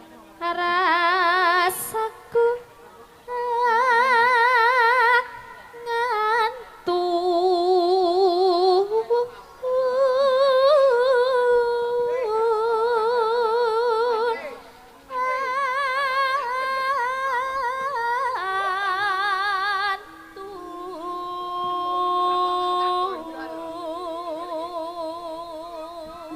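Javanese campursari music: a single melodic lead line plays held notes with a wide, regular vibrato, phrase by phrase with short breaks, and very little bass or drumming under it.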